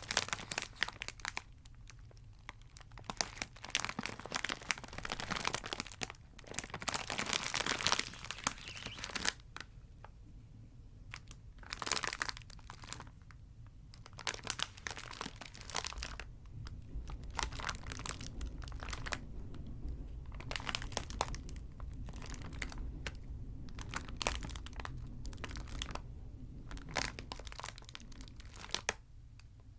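Chocolate wrappers being crinkled and crumpled by hand, in irregular bursts of crackling with short pauses between them.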